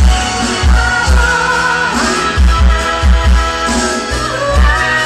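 A woman singing a Nias-language song through a microphone and PA over amplified backing music with a regular heavy bass beat.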